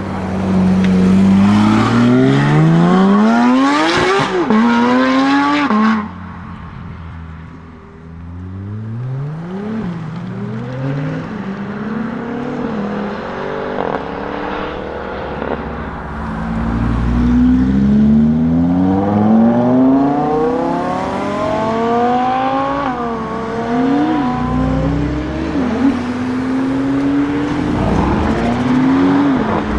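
Lamborghini Huracán STO's naturally aspirated V10 accelerating hard, its pitch climbing steeply and breaking at each upshift. It is loudest over the first six seconds and drops off suddenly at about six seconds. After that the revs rise and fall several times, then climb again through a long pull with another gear change in the second half.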